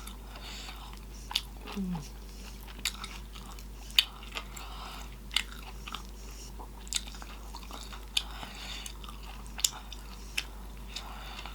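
Close-miked eating of corn on the cob: crisp bites and wet mouth smacks, sharp clicks every second or so, with a short falling hum about two seconds in.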